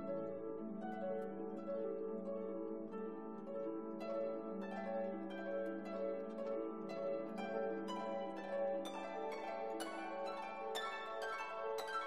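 Instrumental background music: plucked-string notes over held tones, with the plucked notes coming thicker from about four seconds in.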